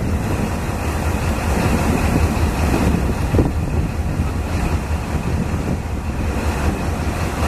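Diesel locomotive running with a steady, heavy low rumble, mixed with wind noise on the microphone.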